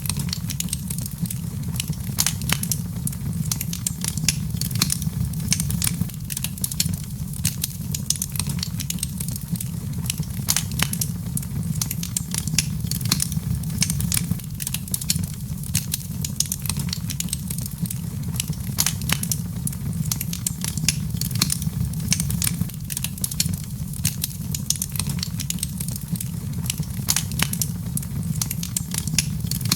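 Wood fire burning in a fireplace, crackling and popping with many sharp irregular snaps over a steady low rumble.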